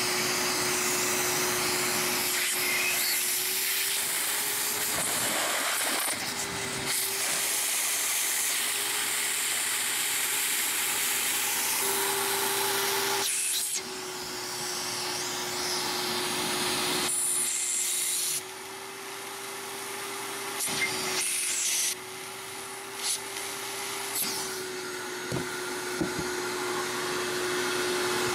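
A wet/dry shop vacuum running steadily with a whining motor tone, drawing on the condensate drain line and pan; its sound drops suddenly a few times as the suction changes, with a few light knocks near the end.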